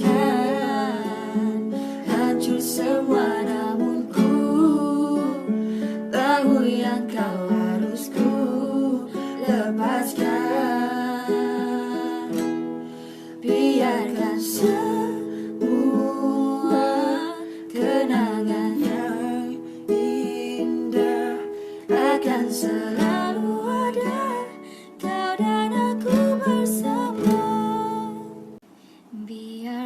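A person singing out of tune to their own strummed acoustic string instrument, a ukulele or small guitar, with chords changing every second or two and a couple of brief pauses in the playing.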